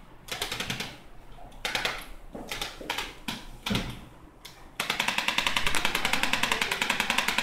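Corded handheld electric percussion device pressed against the patient's hip and back, hammering in rapid, even taps. It comes in short bursts of under a second at first, then runs steadily from about five seconds in.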